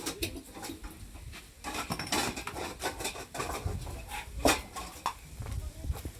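Clinks and knocks of cooking pots and utensils being handled, with a sharper clatter about four and a half seconds in.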